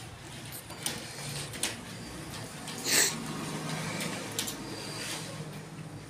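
Computer keyboard keys clicking in slow, scattered keystrokes over a steady low hum, with one short, louder hiss about three seconds in.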